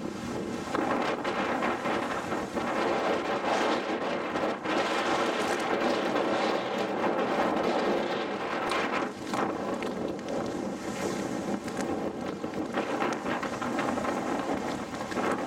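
Wind gusting across the camera microphone, a steady rushing noise that swells and dips.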